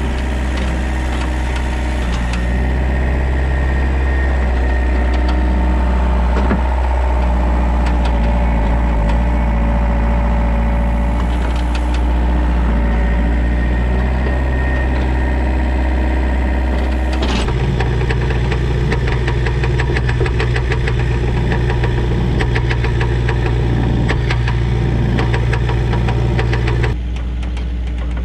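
Excavator's diesel engine running steadily while it works, with light scattered clicks. Its note changes about two-thirds of the way through and drops back slightly near the end.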